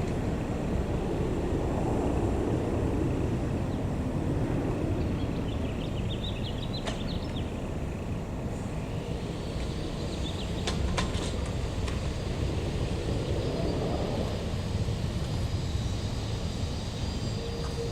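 Street traffic and heavy vehicle engines running: a steady low rumble that swells twice as vehicles pass, with a few short sharp clicks.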